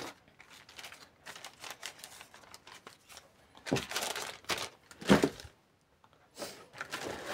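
Plastic and paper packaging rustling and crinkling as it is handled, in a few short bursts, the loudest about five seconds in.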